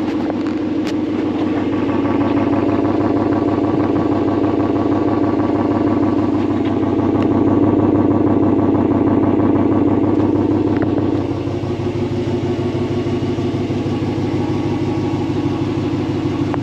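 Ram pickup truck's engine idling, heard close at the tailpipe and from underneath, a loud steady exhaust note with an even rapid pulse. The sound dips slightly about eleven seconds in.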